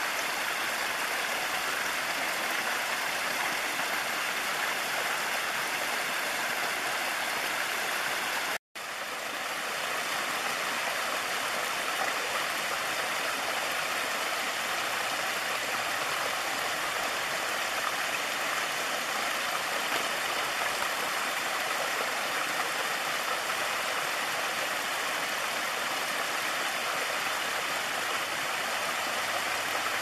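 Mountain stream water pouring in a small cascade down a mossy rock cleft: a steady rushing and splashing. It cuts out for an instant about nine seconds in.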